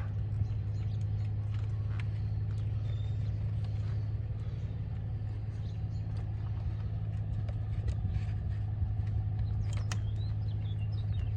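A steady low hum, with a few faint clicks of plastic parts and hoses being handled.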